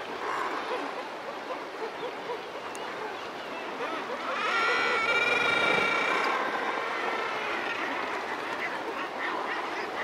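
Seabird cliff colony calling: razorbills, guillemots and kittiwakes keep up a continuous chatter of overlapping calls. About four and a half seconds in, one loud, drawn-out call rises above the rest and lasts about two seconds.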